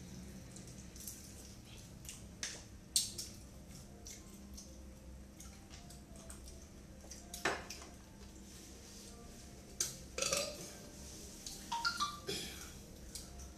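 Scattered clinks and knocks of plates, bowls and utensils handled during a meal, a few of them louder, over a steady low hum.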